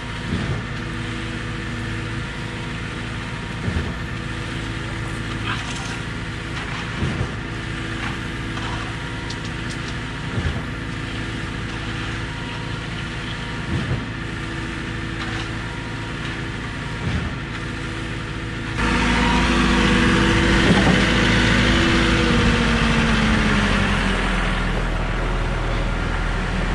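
Trailer concrete line pump running steadily under load while pumping concrete, with a short knock every couple of seconds. About two-thirds of the way in the machine gets markedly louder and noisier, and part of its note falls in pitch a few seconds later.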